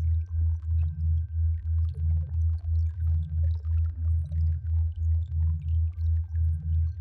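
Synthesized sound-therapy tones: a deep hum that pulses about three times a second, with a higher tone that glides up and back down about once a second. A faint steady high tone runs underneath.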